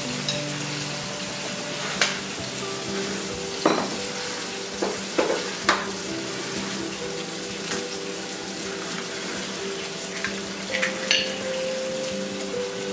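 Eggs and tomatoes frying in oil in a frying pan, a steady sizzle. Over it come several short sharp taps and clicks as eggs are cracked into a small bowl and tipped into the pan.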